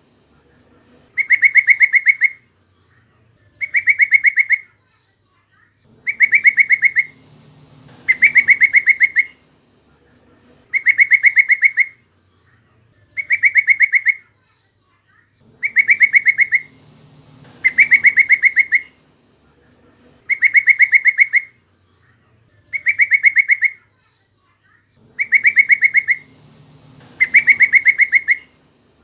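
Yellow-vented bulbul (trucukan) call: a fast chattering trill of identical notes, about a second long, repeated about a dozen times with short gaps between.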